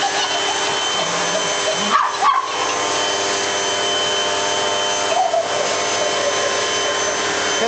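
Vacuum cleaner running steadily with a high motor whine, used to vacuum a dog; the dog makes a few short high-pitched calls about two seconds in and again about five seconds in.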